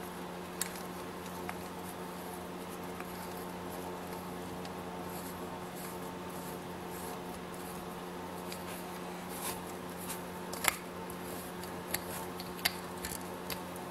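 Light clicks and taps of small plastic and metal parts as a wheel is fitted back onto the hub of a 1/18-scale RC truck. The clicks are scattered at first and more frequent in the last few seconds, over a steady low hum.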